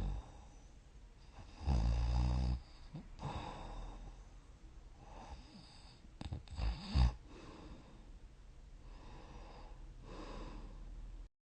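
A person snoring in deep sleep: one loud, low snore about two seconds in, then softer breaths, and two short, sharp snores around the middle. The sound cuts off suddenly just before the end.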